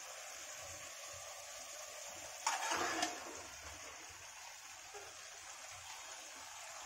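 Steady hiss of masala cooking in a hot kadhai over a raised gas flame. About two and a half seconds in, a louder burst of sizzling lasts about half a second as raw chicken pieces are tipped into the hot masala.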